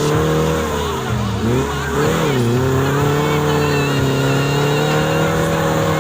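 Car engine running under load while driving through mud, its revs dipping and rising again about one to two seconds in, then holding fairly steady.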